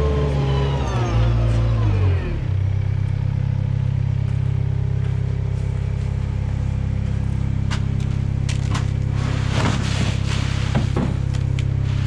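Gehl compact wheel loader's engine dropping from higher revs to a steady idle about two seconds in, then idling. Near the end, a few clatters and scrapes of a plastic bucket scooping grain feed.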